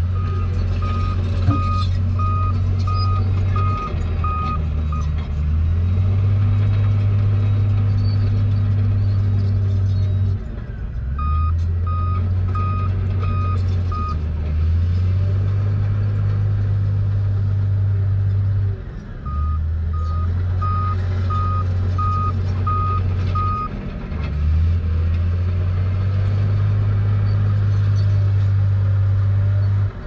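Komatsu bulldozer's diesel engine running hard, its reversing alarm beeping about twice a second in three spells as it backs up between pushes. The engine's note shifts each time the machine changes direction.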